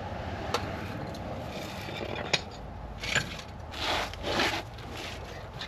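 Metal parts and tools being handled during a front wheel bearing job: a few sharp clicks, the loudest a little after two seconds in, and two short scrapes about three and four seconds in.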